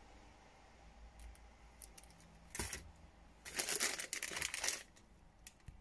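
Clear plastic bag crinkling as a hand grabs and squeezes it: a brief crinkle about halfway through, then about a second of louder crinkling.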